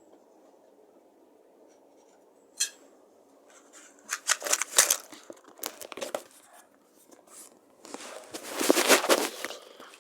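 Matches being struck against a matchbox by hand: a single click, then scratchy strikes about four seconds in and a longer, louder scrape near the end.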